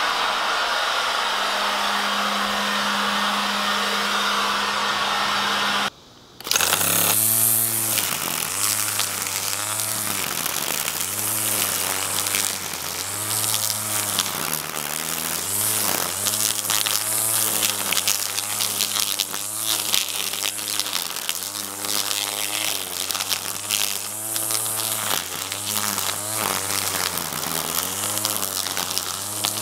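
Battery leaf blower running with a steady whoosh and hum for about six seconds, then cutting off. A cordless brushless string trimmer then takes over, cutting grass with a buzzing whine whose pitch sags and recovers again and again as the line meets the grass: the motor bogging under load, which the owner blames on an underpowered power head that stalls in grass.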